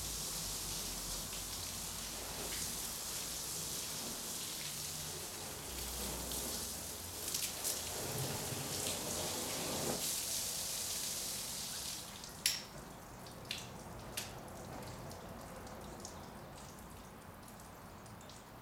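Water hissing and splashing during a hand car wash. The hiss stops about two-thirds of the way through, and a few sharp clicks or drips follow.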